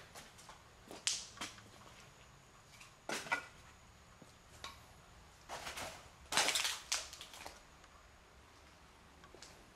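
Footsteps crunching on debris and grit scattered over a hard floor, in uneven scattered steps, with the loudest, longest crunch about six and a half seconds in.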